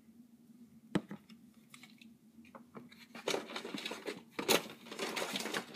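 Handling noise from small plastic toy figures: a single click about a second in, then rustling and small clicks from about three seconds on as the toys are picked up and moved.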